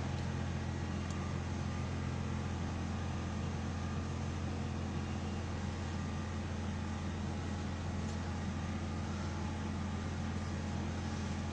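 Engine of a digger derrick utility truck running steadily, powering the boom that holds a transformer up at the pole.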